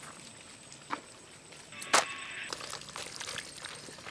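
Two sharp knocks or snaps, a faint one about a second in and a loud one about two seconds in, over a quiet background with a faint steady high whine.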